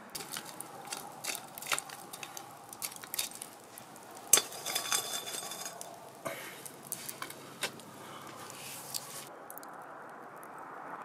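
Metal utensils clicking and knocking against cookware in a series of irregular clinks. The loudest is a sharp metallic clink about four seconds in that rings briefly.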